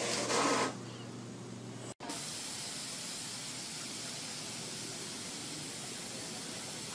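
A steady, even hiss that starts abruptly about two seconds in, after a brief louder noise in the first moment.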